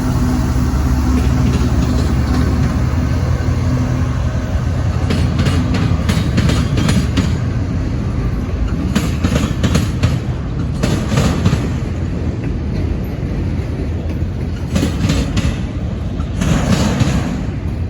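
Freight train passing. The mid-train Union Pacific distributed-power diesel locomotive goes by with a steady engine hum for the first few seconds, then the freight cars roll past with clattering wheels and repeated clicks over the rail joints.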